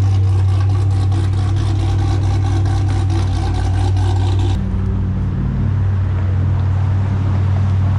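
A vehicle engine idling steadily, a deep, even hum. About four and a half seconds in, the brighter upper part of the sound cuts off abruptly, leaving a slightly changed low hum.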